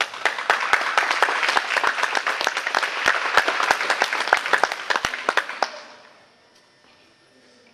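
Audience applauding: a dense burst of clapping that starts suddenly and dies away about six seconds in.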